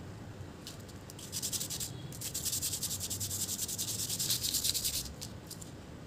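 A refrigerator compressor's small metal valve plate scraped quickly back and forth by hand on a sheet of sandpaper. The scraping comes in a short spell about a second in and then a longer one from about two to five seconds in. The sanding cleans dirt off the flapper valve, which otherwise keeps the compressor from building full pressure.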